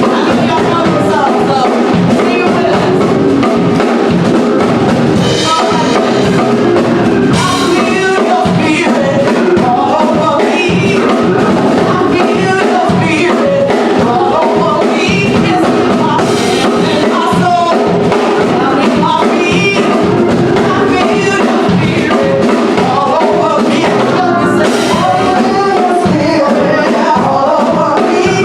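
Gospel song performed by church singers with a band, drums keeping a steady beat under the voices.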